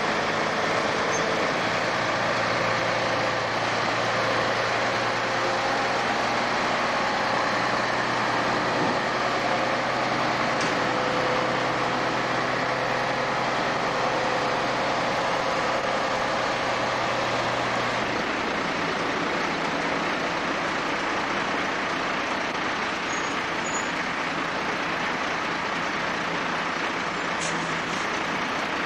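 Diesel engine of a Peterbilt semi-truck running steadily as the loaded tractor-trailer pulls away and drives off. About two-thirds of the way through, the engine note steps up to a higher pitch.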